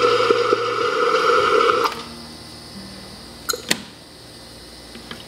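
Kegerator beer faucet held open over a stainless steel tumbler, with the keg coupler disengaged: the beer left in the line rushes out loudly for about two seconds, then cuts off. Two sharp metallic clicks follow about a second and a half later.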